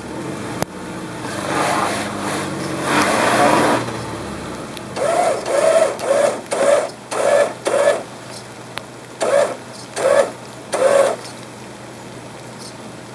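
A motor under load, running in one long swell for the first few seconds, then blipped in about eight short bursts.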